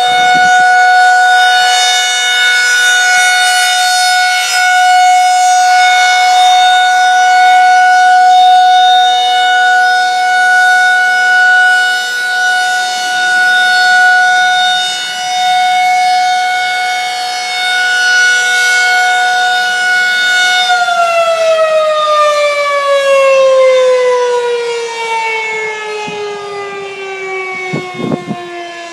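Federal Signal 2001-SRN mechanical civil defense siren sounding its steady alert tone, with the loudness wavering slightly. About 20 seconds in, the tone winds down, falling smoothly in pitch.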